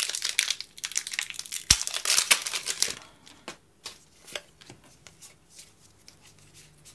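Foil Pokémon TCG booster pack wrapper crinkling and tearing as it is ripped open, loud and dense for about the first three seconds. Then quieter scattered clicks and rustles of the cards being slid through the hands.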